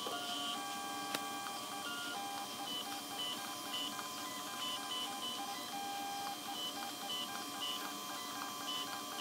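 Stepper motors of a Creality CR-6 SE 3D printer whining in short tones that keep changing pitch, a few changes a second, as the print head moves and probes the bed point by point during automatic bed leveling.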